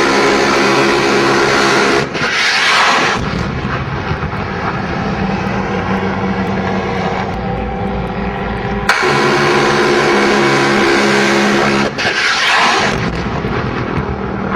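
AH-1 Cobra attack helicopter running steadily. Twice, a loud stretch of noise about three seconds long starts and stops abruptly, near the start and about nine seconds in, each followed by a brief whooshing sweep.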